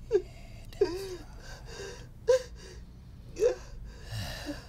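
A man sobbing, with about four short gasping, whimpering sobs and breathy intakes between them.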